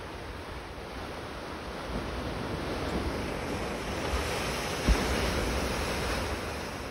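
Ocean surf washing over rocks below a cliff, a steady rushing that swells through the middle and eases near the end. There is a brief low thump about five seconds in.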